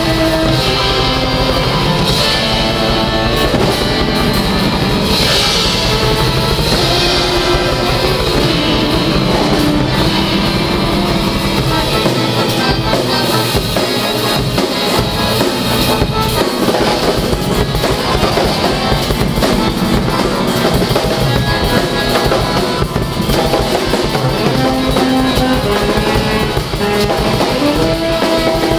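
Live free-jazz improvisation by an ensemble with two drum kits and piano: dense, continuous drumming under held melodic notes, some of which slide upward.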